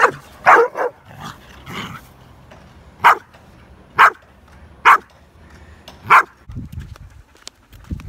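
Dog barking in play: about eight short, sharp barks at uneven intervals.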